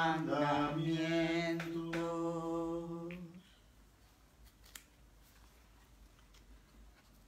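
A priest singing the psalm refrain unaccompanied, ending on the word 'mandamientos' with a long held low note that stops about three and a half seconds in. After that there is only faint room quiet with one soft click about a second later.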